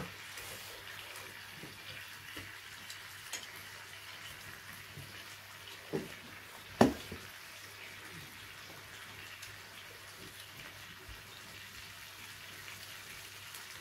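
Meat sizzling on a tabletop Korean barbecue grill plate around a simmering hotpot: a steady frying hiss. A sharp knock about seven seconds in is the loudest sound, with a softer one just before it.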